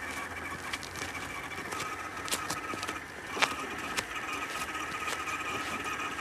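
RC4WD Gelande 2 scale crawler driving slowly, its brushless motor and R3 transmission giving a steady gear whine, the noise of the stock plastic spur gear. A few sharp clicks come as it rolls over twigs and stones.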